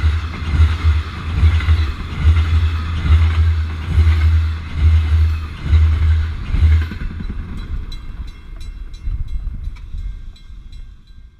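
Passenger train passing at speed right beside the track: a heavy, pulsing low rumble with rushing wheel and air noise. About seven seconds in the train noise drops away, leaving the grade-crossing bell ringing in quick, even strokes, fading out near the end.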